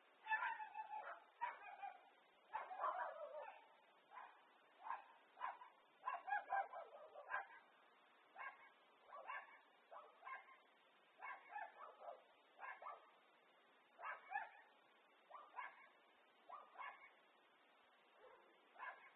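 A dog barking over and over, picked up by a home security camera's microphone. The barks come in quick runs for the first several seconds, then as single barks or pairs about a second apart.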